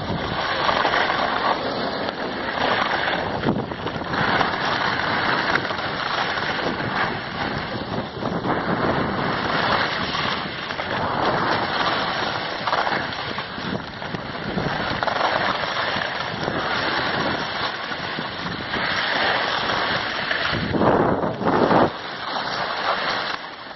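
Wind rushing over a moving microphone together with skis scraping and hissing over packed snow while skiing downhill, rising and falling every second or two with the turns.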